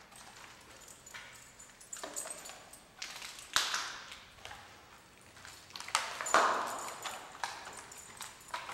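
Footsteps and scuffs over a debris-strewn tile floor, with scattered knocks and two louder clattering crunches, about three and a half and six seconds in, that echo in the empty room.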